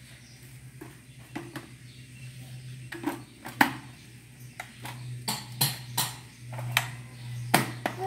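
Plastic parts of a Mondial stick vacuum being snapped and pushed together: a string of sharp clicks and knocks as the dust cup, handheld body and floor nozzle are fitted back into place, coming more often in the second half, over a steady low hum.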